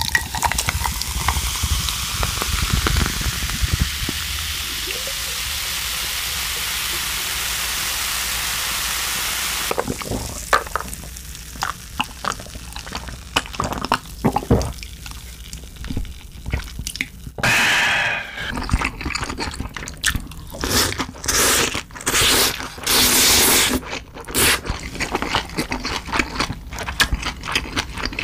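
Coca-Cola poured from a can into a glass mug over ice, fizzing steadily for about ten seconds. Then close-miked drinking and eating sounds follow: sips, a few noisy slurps, and chewing of buckwheat noodles, with many small wet clicks.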